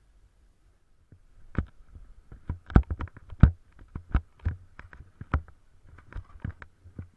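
Irregular thumps, knocks and snow crunches right at a body-worn action camera as a snowboarder moves about in deep snow, a couple of dozen over about five seconds, the loudest in the middle.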